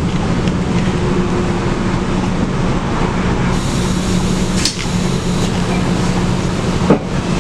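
Scania DC9 five-cylinder diesel of a Scania K280UB city bus running steadily, with a low steady hum under road and body noise, heard from on board. A sharp knock sounds near the end.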